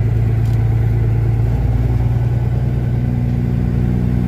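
Semi truck's diesel engine running at low speed, heard from inside the cab as a steady drone whose note rises slightly about one and a half seconds in.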